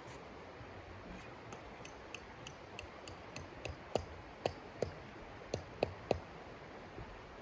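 Wood stove popping and ticking: a run of sharp clicks, sparse and faint at first, then louder, with the loudest half-dozen coming about four to six seconds in over a steady low hiss.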